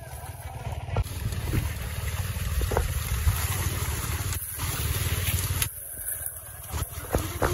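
A small engine running steadily with a low rumble, most likely the generator brought along to pump the pond dry. A few short knocks or splashes sound over it as the men wade through the mud.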